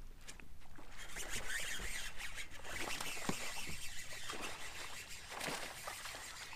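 Water splashing as a lure is worked across calm water, with a bass striking it in a splash near the end.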